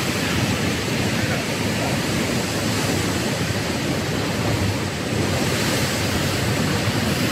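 Sea surf with wind blowing across the microphone: a steady rushing noise.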